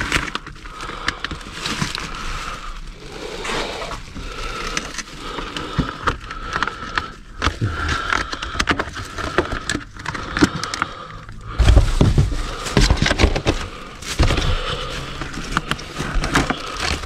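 Food packaging being handled and shifted about in a dumpster: plastic crinkling, scraping and clicking, with a run of heavier thumps and bumps about twelve seconds in.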